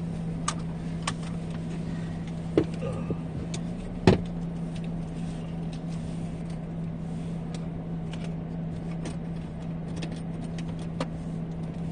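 Car cabin noise while driving: a steady hum with a constant low tone, broken by a few sharp clicks and knocks, the loudest about four seconds in.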